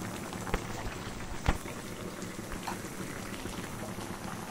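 A thick vegetable curry bubbling in an aluminium karahi: a steady simmering hiss dotted with small pops as large bubbles burst, and one sharper pop about a second and a half in.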